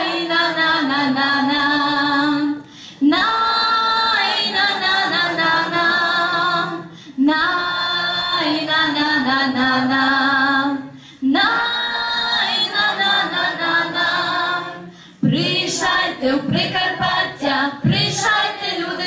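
Mixed choir of Hutsul boys and girls singing a Ukrainian folk song unaccompanied, in long held chords phrased in lines of about four seconds with short breaths between. The last few seconds turn to quicker, choppier words.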